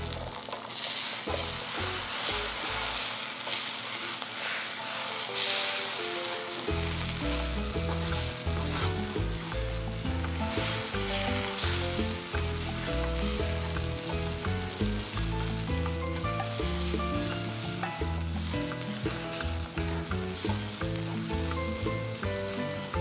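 Beaten eggs sizzling in a hot cast-iron Dutch oven lid used as a griddle, with a wooden spatula stirring and scraping across the iron as they scramble. Background music plays underneath, its bass coming in about seven seconds in.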